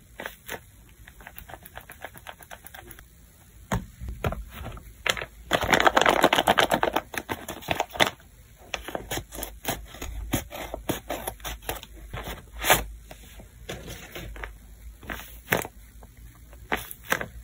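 Crinkling and crackling of tape-covered paper squishies being squeezed by hand, and of a paper blind bag being handled and crumpled, with a dense, loud stretch of crinkling about six seconds in.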